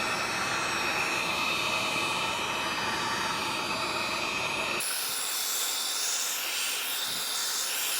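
Heat gun running, a steady rush of blown air with a faint whine, drying fresh paint inside a PC case. About halfway through the sound changes abruptly to a thinner, higher hiss.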